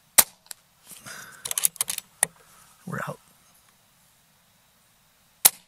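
Air Arms S510XS Tactical .22 PCP air rifle: a sharp shot crack just after the start, then a run of metallic clicks and rattles, and another sharp crack near the end.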